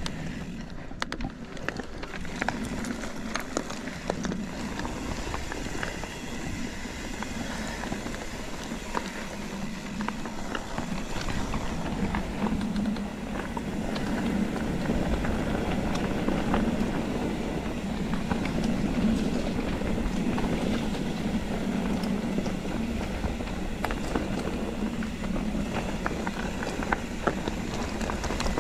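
Mountain bike being ridden over rough singletrack: a steady rumble of tyres on dirt and stones, with frequent small rattles and knocks from the bike over the bumps.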